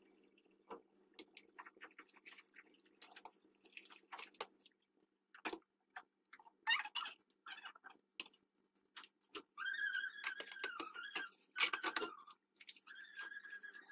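Wet boiled dough sheets and crumbled cheese being handled and pressed into a round metal baking tray, a string of soft sticky clicks and squelches. In the last few seconds a steady high tone sounds twice while a hand reaches into a basin of water.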